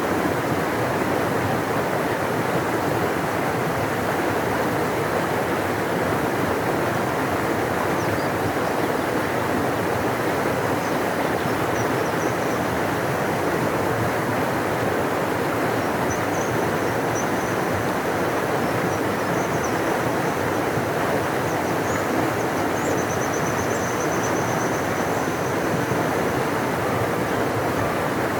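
Large river rushing, a steady deep roar of flowing water with no let-up. A faint thin high sound comes and goes over it from about a third of the way in.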